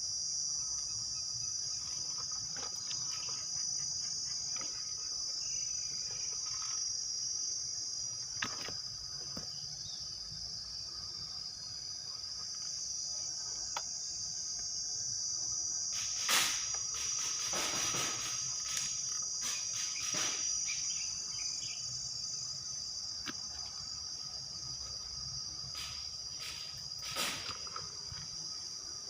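Steady high-pitched drone of insects. A few short sharp clicks are scattered over it, clustered about halfway through and near the end.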